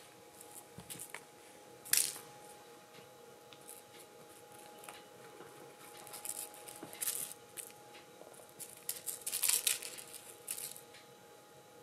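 A kitten's claws scratching and scrabbling on a fabric cover and a knitted toy as it wrestles with the toy, in short scratchy bursts, the sharpest about two seconds in.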